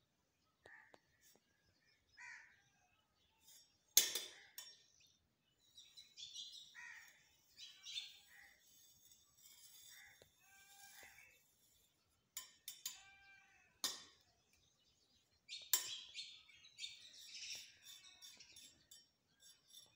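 Small steel trowel scraping over fresh cement plaster on brick, with about four sharp clinks as it knocks against the masonry. Short bird chirps come and go behind it.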